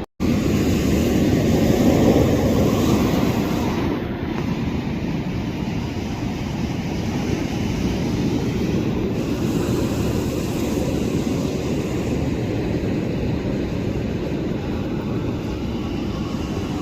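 Steady low rumble of wind and surf on an exposed ocean shore, loudest in the lows and swelling a little early on. The sound drops out for a moment right at the start.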